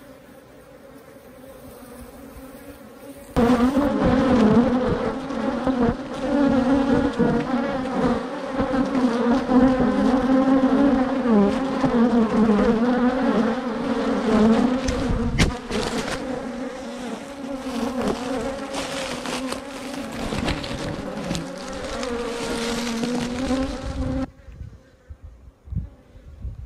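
Honeybees buzzing right at the microphone, agitated and defensive as they swarm over the camera: a loud, wavering hum with scattered sharp ticks. The buzz is quieter at first, jumps up about three seconds in, and falls away abruptly near the end.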